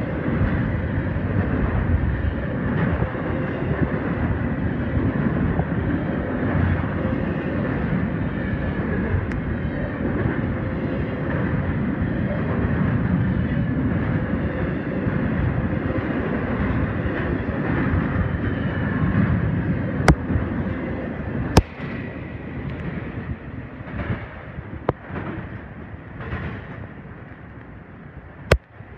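Double-stack intermodal freight train of container well cars passing close at speed: a steady rumble and clatter of wheels on rail. A few sharp cracks stand out toward the end, and the sound falls away and turns uneven once the last cars have gone by, about three quarters of the way through.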